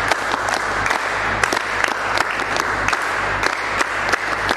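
Congregation applauding: many hands clapping in a dense, steady patter, with individual sharp claps standing out.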